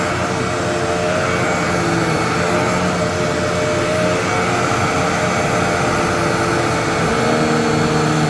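Vacuum cleaner running steadily: a motor whine over rushing air. Its hum changes slightly about seven seconds in.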